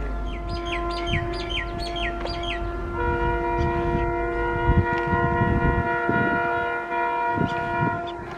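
Indian Railways electric locomotive horn held in one long steady blast, from the WAP4 on the Punjab Mail after a cut about three seconds in, stopping near the end. Birds chirp over it in the first few seconds, and irregular low thumps from the approaching train sound underneath.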